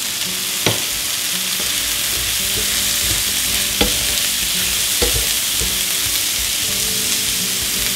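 Sliced mushrooms sizzling in a hot frying pan, being stirred and turned with tongs; the tongs clack against the pan a few times.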